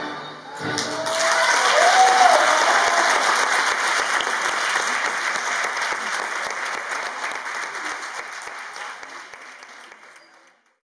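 Audience applauding, starting a moment in, loudest after about two seconds, then slowly dying away and cut off near the end.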